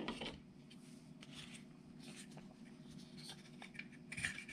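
Faint light scraping and small clicks of the hard plastic body parts of an ECX Temper Gen 2 RC rock crawler being handled and fitted back onto the chassis.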